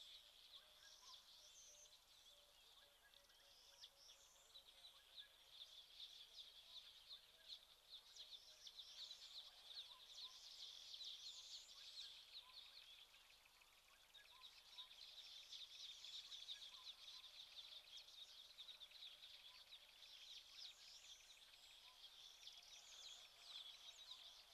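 Faint chorus of small birds chirping, a steady wash of quick high notes that thins briefly just past the middle and then picks up again.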